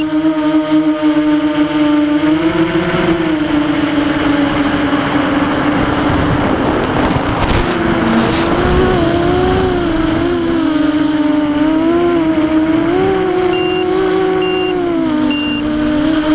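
F330 quadcopter's brushless motors and propellers heard from the onboard camera: a loud, steady hum whose pitch wavers up and down as the throttle changes, with a rush of air noise around the middle. Near the end come three short, high electronic beeps about a second apart.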